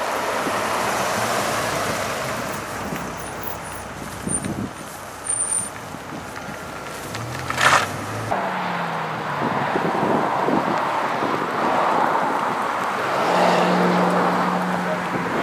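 A Dodge Viper's V10 engine runs as the car drives past and away. About eight seconds in, the sound cuts to a Lamborghini Gallardo's V10 running at low revs with a steady low note.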